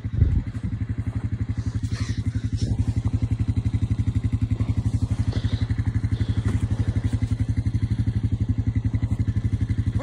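Small engine of a yellow snow-plowing machine idling steadily, with an even, rapid pulse. A brief thump sounds right at the start.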